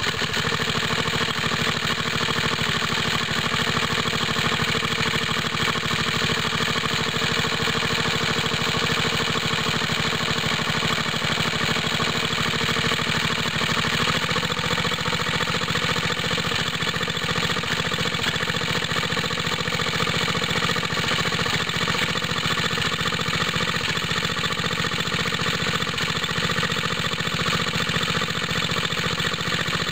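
Small single-cylinder air-cooled engine of a belt-driven water-pump rig running steadily on a cold start. The engine has a leaking head gasket and has lost some compression.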